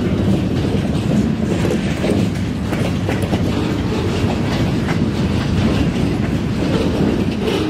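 Log-loaded bulkhead flatcars of a freight train rolling past at close range: a steady rumble of steel wheels on rail, peppered with rapid clicking as the wheels pass over rail joints.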